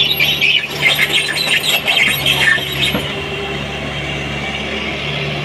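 JCB JS140 tracked excavator moving: high, irregular squealing from its tracks over a steady diesel engine hum. The squealing stops with a single clunk about three seconds in, leaving the engine running steadily.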